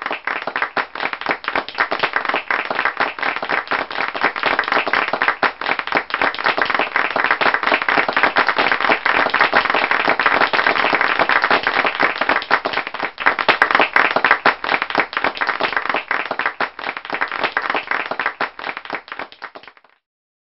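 Applause from many people: dense clapping that swells in the middle and fades out near the end.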